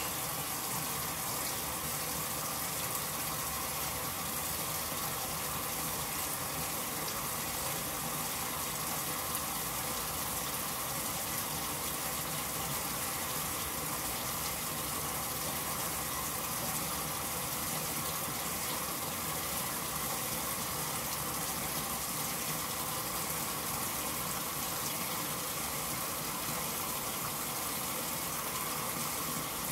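Whirlpool Supreme belt-drive top-load washer filling: water gushes steadily from the fill inlet into the tub over the clothes.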